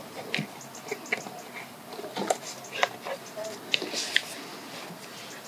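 Bernese mountain dog puppy nosing and chewing in grass, making irregular soft clicks, crackles and rustles.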